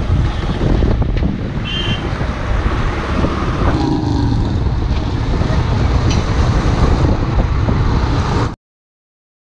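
Road traffic noise with vehicle engines, a dense low rumble, cutting off suddenly near the end.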